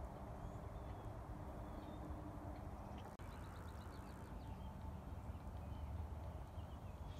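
Outdoor ambience: a steady low rumble with faint bird chirps, and a short quick run of chirps about three seconds in.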